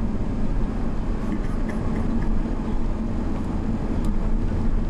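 Steady engine and road rumble heard from inside a vehicle's cabin.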